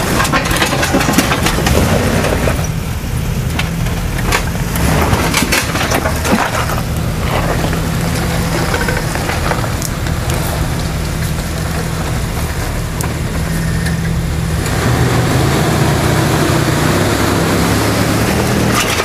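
Jeep Wrangler's engine running at low revs under load as it crawls over a rutted dirt step, with scattered knocks and scrapes from the tyres and brush.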